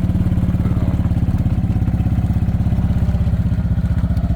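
Engine running steadily with a rapid, even pulse.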